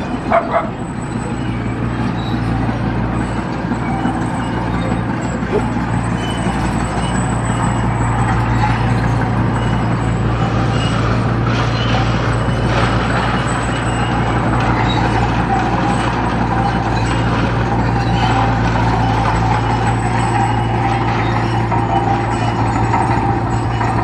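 Komatsu D20P bulldozer's diesel engine running steadily under work, growing louder over the first several seconds. A dog yips briefly at the very start.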